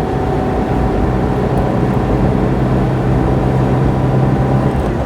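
Citroen GSA's 1.3-litre air-cooled flat-four engine running steadily while the car drives along, with road and tyre noise inside the cabin. The low engine drone eases off near the end.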